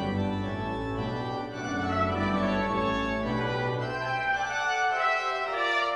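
Pipe organ playing a hymn in full, sustained chords, with a deep pedal bass under them. The bass drops out for about a second near the end.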